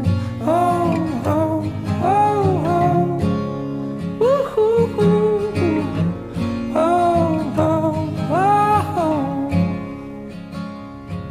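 Background song: a voice singing a melody over acoustic guitar, dipping in level near the end.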